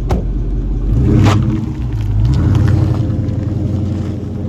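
A car engine running with a steady low note that steps up slightly about a second in, with two sharp knocks, one at the very start and one about a second later.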